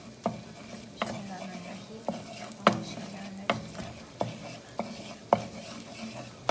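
An egg frying in melted butter, sizzling steadily, while a wooden spatula stirs and scrapes it around the pan, knocking against the pan about every two-thirds of a second.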